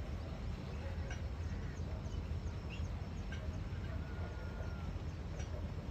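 Scattered faint bird chirps over a steady low rumble, with one longer thin whistle a little past halfway.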